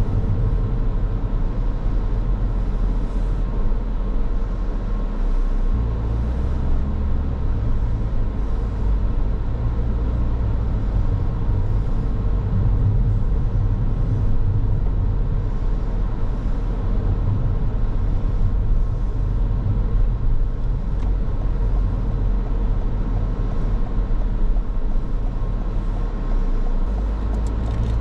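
A car driving along the road: steady engine and tyre rumble. The low engine note shifts about six seconds in and again near the end.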